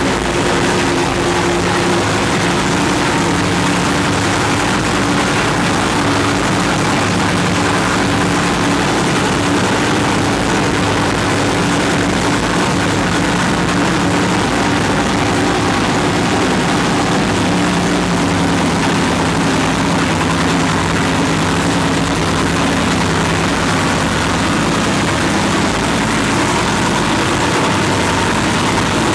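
Freshly rebuilt racing engine running steadily at idle on its first start-up after the rebuild, its pitch shifting slightly a couple of times.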